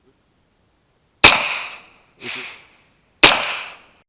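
Two suppressed 9mm subsonic shots from a Ruger PC9 direct-blowback carbine with a SIL9-R suppressor, about two seconds apart, each a sharp crack that fades over about half a second. A fainter, shorter noise comes between them.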